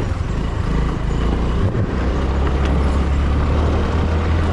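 A two-wheeler's small engine running under way, pulling off: a steady low engine hum under a hiss of wind and road noise. The hum firms up about halfway through.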